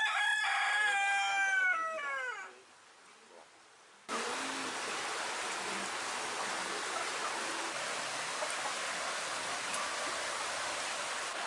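Ayam Cemani rooster crowing once: a long held call that falls in pitch as it ends. After a short quiet gap, a steady hiss of outdoor background noise starts abruptly about four seconds in.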